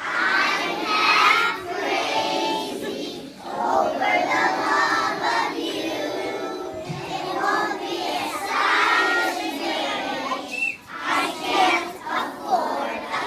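A group of young children singing together as a class, phrase by phrase with short breaks between lines.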